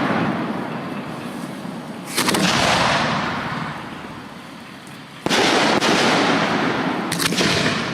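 Aerial fireworks shells bursting during a display. There are three sharp bursts about two, five and seven seconds in, and each is followed by a noise that fades over a couple of seconds.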